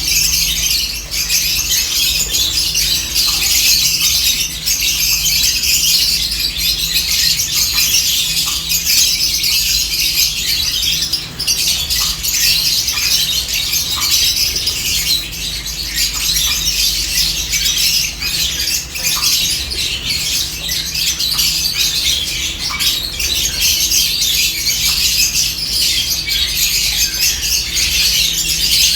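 A flock of lovebirds chirping continuously, many high-pitched calls overlapping into one unbroken chatter.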